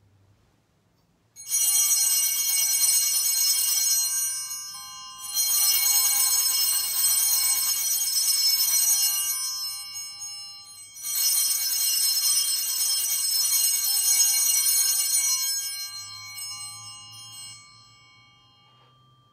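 Altar bells rung three times, each a shimmering jingle of several steady tones lasting a few seconds, the last dying away slowly. They mark the elevation of the chalice at the consecration of the Mass.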